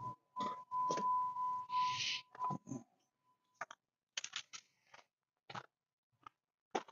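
A steady high electronic warning tone from the Jeep, over scraping and rustling for the first two and a half seconds, then a few faint scattered clicks.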